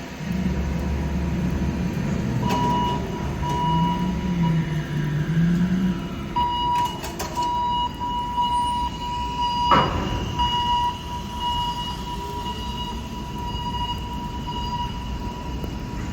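A port container crane is lowering a container onto a truck chassis. A motor rumbles and wavers under a repeating warning beeper, and the beeps come in runs of short and longer tones. About ten seconds in, one sharp metal bang sounds as the container lands on the chassis.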